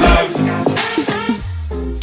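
Music soundtrack: the heavy bass beat of an electronic dance track stops just after the start, then sparse pitched notes and a held low bass note lead into the next song.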